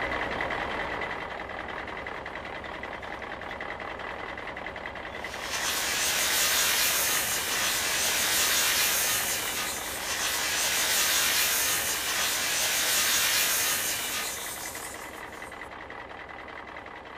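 Small river pebbles sliding out of a tipped plastic toy dump-truck bed and pouring onto a wooden floor: a dense rattling clatter that starts about five seconds in, swells twice, and dies away about fifteen seconds in.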